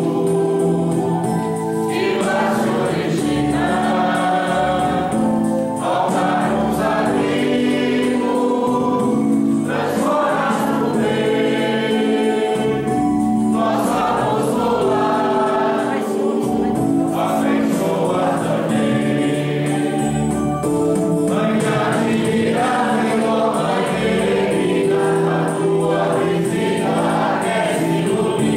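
Congregation singing a church hymn together, accompanied by an electronic keyboard holding steady chords.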